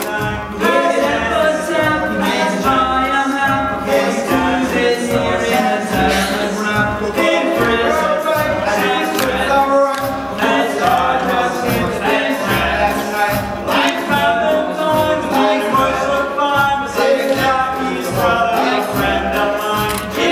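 Three teenage male voices singing a three-part fugue, their lines overlapping in counterpoint, over an instrumental accompaniment with a steady bass beat.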